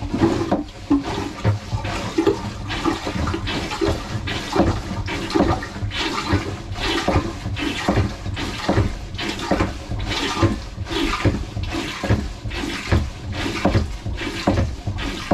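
Manual marine toilet being hand-pumped in flush mode: a steady run of pump-lever strokes, roughly one every half second, each with a slosh and gurgle of water. With the selector on flush, each stroke draws seawater in to rinse the bowl while pumping the contents out.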